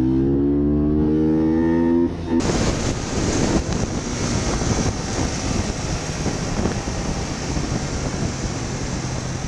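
Motorcycle engine accelerating, its note climbing steadily, then cut off abruptly about two seconds in. After that, steady wind rush and road noise over a motorcycle running at speed.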